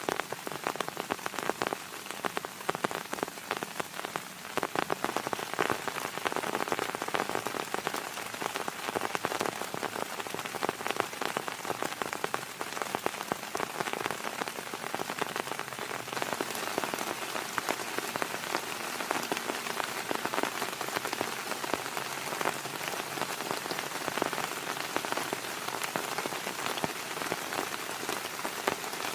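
Heavy rain falling steadily, with dense, close drop hits on a surface.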